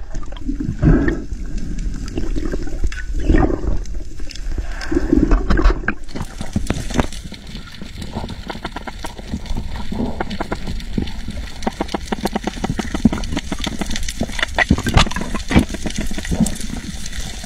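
Underwater sound: muffled bubbling and gurgling in pulses about a second apart, then from about six seconds in a dense, steady crackle of fine clicks typical of snapping shrimp on a coral reef.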